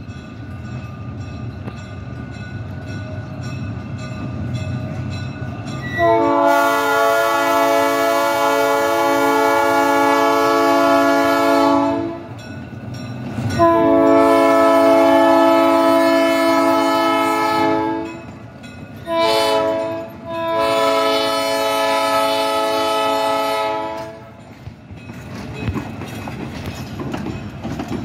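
Diesel switcher locomotive approaching with its engine running, then sounding its air horn long, long, short, long: the grade-crossing signal. Near the end the coaches roll past, wheels clacking over the rail joints.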